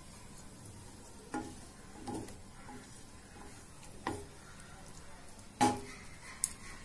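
Wooden spatula stirring grated bottle gourd and milk in a hot pan, with a low sizzle underneath and a few scrapes of the spatula against the pan, the loudest near the end. The mixture is being cooked down until it thickens.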